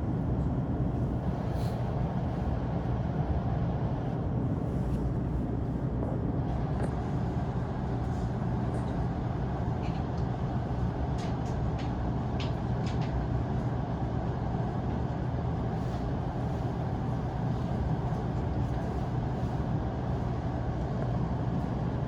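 Steady low hum inside a JR East E233-1000 series electric train car standing still, with a few faint clicks about halfway through.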